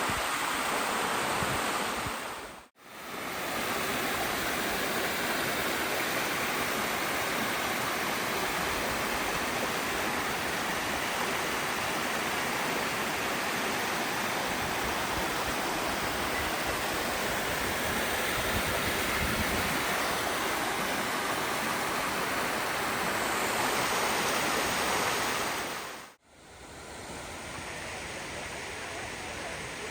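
Water rushing steadily down a waterfall. It drops out briefly twice, about three seconds in and near the end, and comes back quieter after the second dropout.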